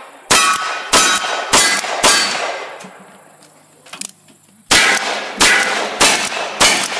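Revolver shots fired at steel plate targets, each shot followed by the ring of the struck steel. There are four shots about half a second apart, a pause of about two and a half seconds with a faint click, then four more at the same pace.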